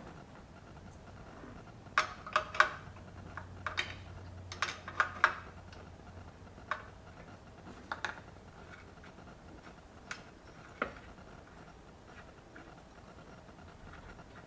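Wrench clinking against metal as nuts are worked loose on a two-stroke golf cart engine: a quick cluster of sharp clicks and clinks, then a few scattered ones further apart.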